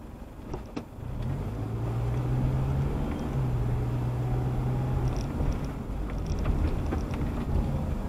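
Car engine pulling away from a stop, heard from inside the cabin. A steady low drone sets in about a second in, after a couple of light clicks, and a few more faint clicks come near the end.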